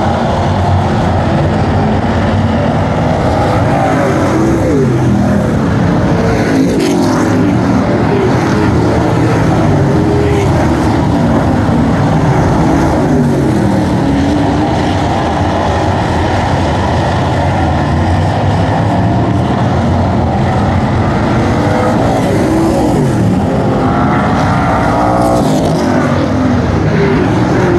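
A field of dirt-track street stock race cars running hard around the oval. Their engine notes rise and fall as cars pass, and one car passes close near the end.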